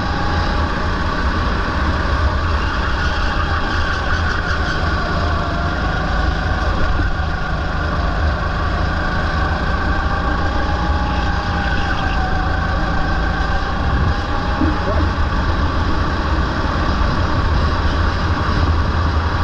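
Rental go-kart's small engine running at racing speed, heard from the driver's seat, its note rising and falling a little with the throttle through the corners.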